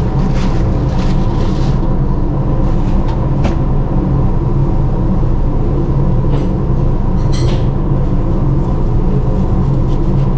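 Loud, steady drone of a ship's machinery, a constant hum of several fixed low tones. Over it come a few faint clicks and knocks as meat is handled and cut with a knife on a plastic cutting board.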